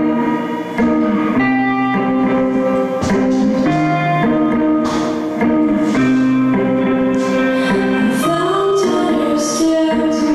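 A live rock band playing: electric guitars strumming held chords over bass and drums with cymbals, and a woman singing.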